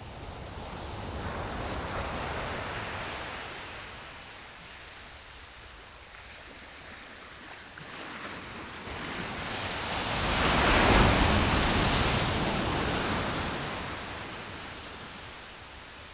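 Sea surf: waves rolling in and washing out, a smaller swell about two seconds in and a larger one peaking about eleven seconds in.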